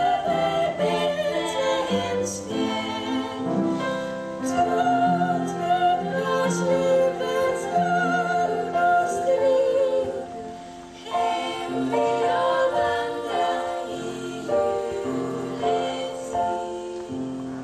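A group of young women singing a song together in Swedish, several voices at once.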